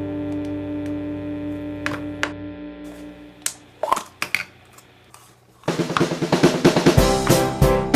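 Background music: a held chord slowly fades out, with a few sharp taps, then after a brief lull a new beat-driven track with drums and keyboard starts about three-quarters of the way through.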